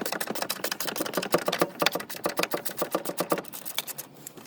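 Socket ratchet clicking rapidly, about ten clicks a second, as the 12 mm bolt of a car battery clamp is wound out. The clicking stops near the end.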